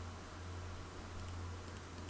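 Steady low hum with an even faint hiss: the recording's background noise, with a few faint clicks.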